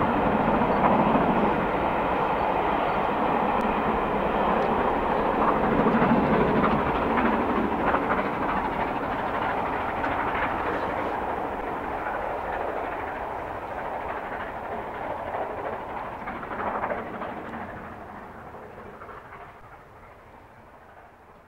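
Steam-hauled train running away into the distance: GWR Castle class 4-6-0 No. 5043, a four-cylinder locomotive, working hard on a climb, with its coaches rumbling over the viaduct. The sound dies away steadily and is faint by the end.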